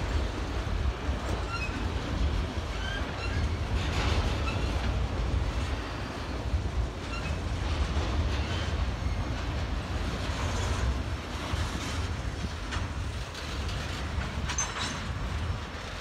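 Freight train cars rolling past, autoracks giving way to intermodal container cars: a steady low rumble with scattered short high wheel squeaks and a few sharp clunks, one about a quarter of the way in and a couple more in the second half.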